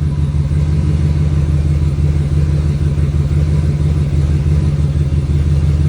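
Turbocharged 392 HEMI V8 held at a steady rpm on a two-step launch limiter, building boost, with a faint steady turbo whine over the engine's rumble.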